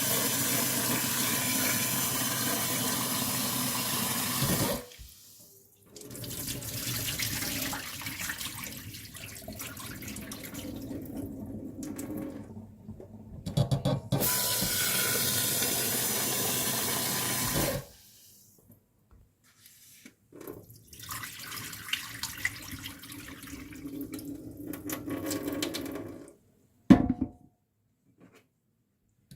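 Water running from a tap into a sink, shut off after a few seconds and turned on again for a few seconds around the middle. Between and after the runs come quieter uneven splashing and handling sounds, with one sharp knock near the end.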